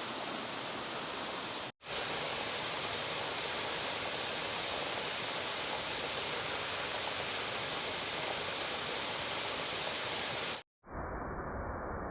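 Steady rushing hiss of a small waterfall, broken by two short cuts; after the second cut, near the end, it gives way to a duller, muffled rumble.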